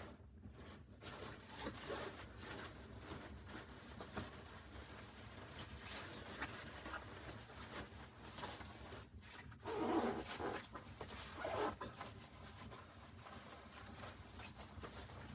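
Close rustling and scraping handling sounds, irregular throughout, with two louder rasps about ten and eleven and a half seconds in.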